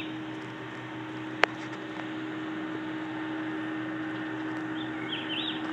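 Steady outdoor background noise with a constant hum, a single sharp click about a second and a half in, and a short chirping bird call near the end.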